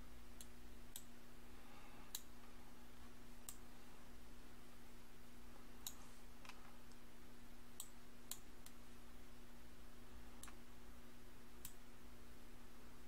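Computer mouse buttons clicking, about ten sharp single clicks at irregular intervals, as the 3D view is dragged and rotated. A steady low hum runs underneath.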